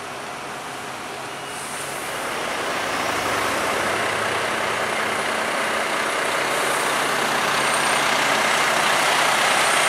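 MAN NL323F A22 single-deck diesel city bus approaching and driving past close by. Its engine and tyre noise swells from about a second and a half in and is loudest near the end as the bus goes by.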